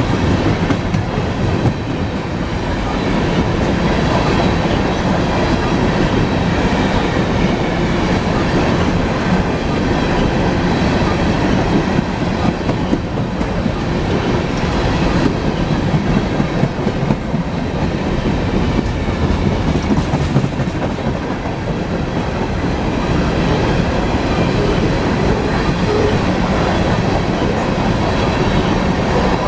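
Coal train's cars rolling past with a steady rumble of steel wheels on rail and a continuous clickety-clack over the rail joints.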